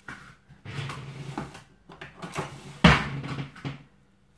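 Cling film rustling and crinkling as it is pulled and pressed around a ball of pasta dough on a worktop, with one sharp thump about three seconds in.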